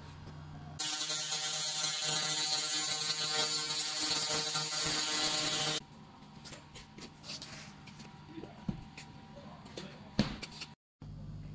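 LM-2000C handheld laser cleaning head ablating the coating off a metal plate: a loud rasping buzz starts about a second in and cuts off abruptly about five seconds later. A low machine hum is under it before it starts, and faint scattered clicks follow it.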